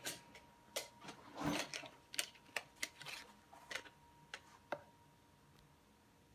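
Light clicks and taps from small objects being handled, about ten of them in the first five seconds, with a brief rustle about a second and a half in.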